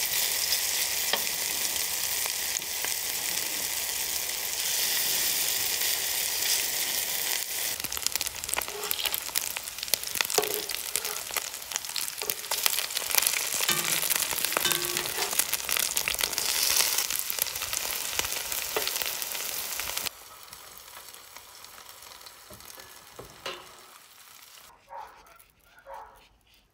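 Beef liver frying in hot oil, a dense sizzling hiss with constant crackles and pops. It cuts off suddenly about 20 seconds in, leaving only a faint background.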